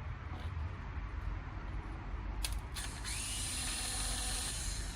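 A couple of clicks, then a small electric motor spins up and runs with a steady high whine for about two seconds, over a low background rumble.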